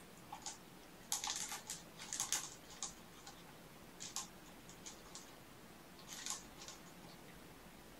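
Plastic ball-track toy clicking and rattling as a kitten paws at it, in several short bursts of clicks, the busiest from about one to three seconds in.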